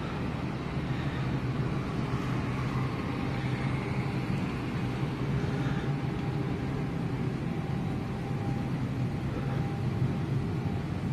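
Steady rushing air and a constant low hum inside an empty Airbus A321-200 cabin, the sound of the airliner's cabin ventilation and air-conditioning running.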